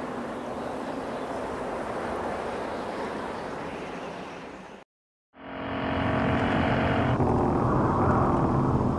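A steady rushing noise fades out to a brief silence about five seconds in, then a pickup truck's engine runs as the truck drives along a dirt road.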